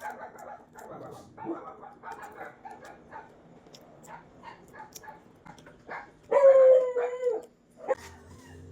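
An animal calling: a run of short sounds, then one long, loud call with a steady pitch lasting a little over a second about six seconds in, and a short call near the end.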